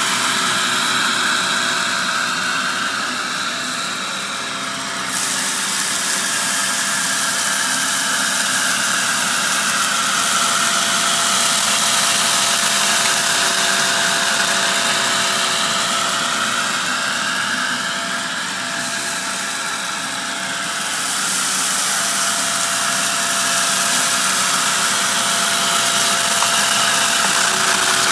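Shark vacuum cleaner running, a steady motor hum with a rushing hiss that swells and fades slowly twice.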